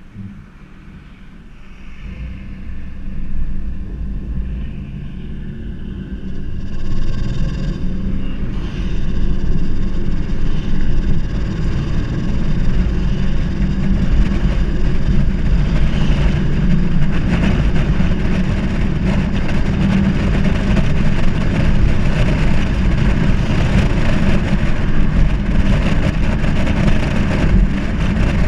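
Holden VR Commodore's engine and exhaust under acceleration, building up over the first ten seconds and then running loud and steady. This is the exhaust noise the owner flags as a problem when accelerating.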